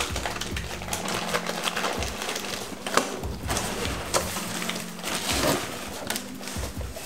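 Cardboard box flaps and plastic wrapping rustling and crinkling as a boxed turbocharger is handled and lifted out, with a couple of sharp knocks about three and four seconds in. Soft background music plays underneath.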